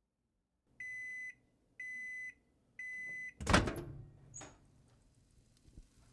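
Microwave oven signalling the end of its cooking time with three steady beeps about a second apart, followed by a loud clack as the door is opened and then a smaller knock.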